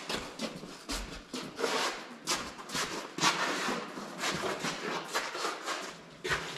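Irregular knocks, clunks and scrapes as a tractor's rear fender is lifted off and carried away, with footsteps on a concrete floor.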